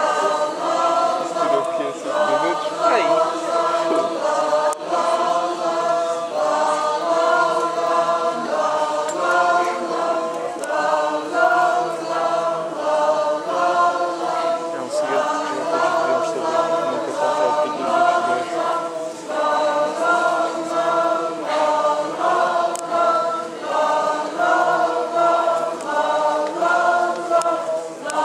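Mixed choir of men and women singing in parts, holding chords that change together note by note.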